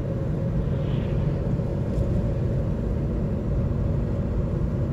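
Steady low road rumble of a car driving at speed, tyre and engine noise heard from inside the cabin.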